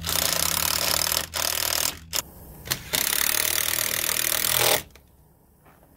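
Cordless power driver running in bursts as it drives long screws through the slide-out trim and plywood into the framing: two bursts, two short blips, then a long final burst that stops shortly before the end.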